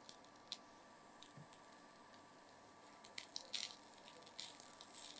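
A spatula stirring cooked rice into beetroot masala in a nonstick frying pan. There are a few faint taps at first, then from about three seconds in, soft scraping and clicks of the spatula against the pan.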